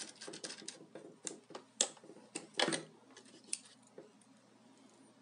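Handling noises from an FPV headset and an antenna being screwed onto it: a run of small clicks and taps, with two louder knocks near the middle, thinning out after about three and a half seconds.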